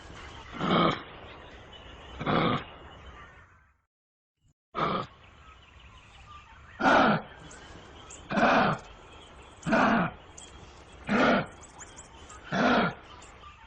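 Kangaroo giving a series of short, harsh calls, each falling in pitch, repeated about every one and a half seconds. The sequence breaks off briefly about four seconds in.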